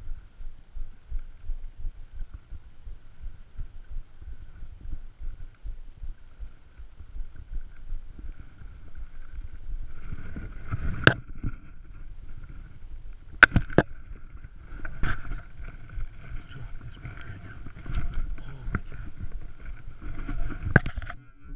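Footsteps and clothing rustle as someone walks over rough ground, a low thump about twice a second. In the second half there are several sharp knocks, the loudest two about halfway through.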